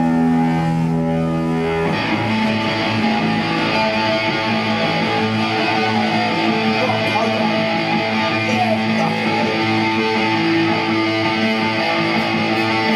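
Live punk rock band playing with electric guitars. A few held guitar notes ring for the first couple of seconds, then the full band comes in and plays on loudly.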